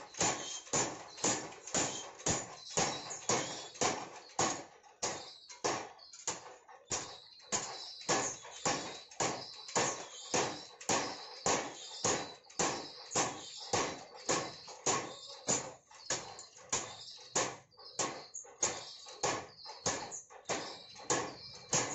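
Mechanical power hammer forging a steel spade blank, striking in a steady rhythm of about two blows a second.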